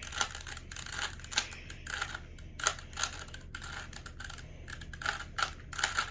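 Rubik's-brand 3x3 cube being turned quickly by hand: irregular runs of plastic clicks and clacks as the layers snap round during a speedsolve.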